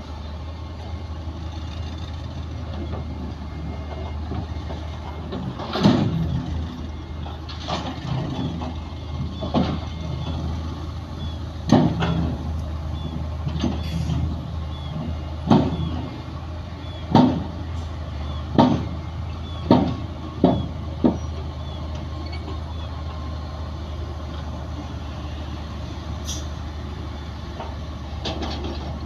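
Heavy diesel earthmoving machines running steadily with a low drone, with a series of about ten sharp, loud metal clanks and bangs from about six to twenty-one seconds in.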